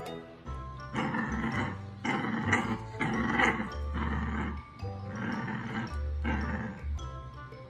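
A puppy growling and barking in short bursts, about one a second, with background music underneath.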